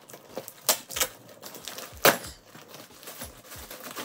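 Cardboard box and plastic-wrapped mini basketball hoop parts being handled and pulled out: rustling with a rapid run of small clicks and knocks, two louder knocks near the start and about two seconds in.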